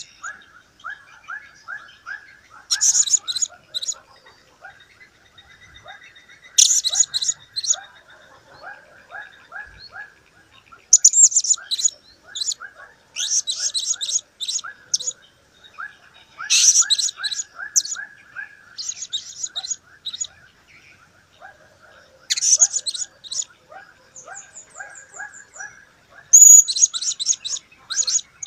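Blue-crowned hanging parrot giving bursts of shrill, very high, rapid chirps, each lasting about a second and coming every two to four seconds, over a steady stream of quieter, lower rapid chirping.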